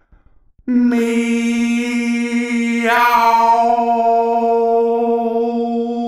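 A voice chanting a long, drawn-out "meow" on one steady held note, like a meditation chant. It begins about a second in, and the vowel opens partway through.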